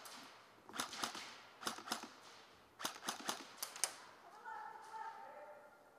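Airsoft guns firing short bursts of sharp snapping shots: two brief bursts in the first two seconds, then a longer run of about half a dozen shots near the middle.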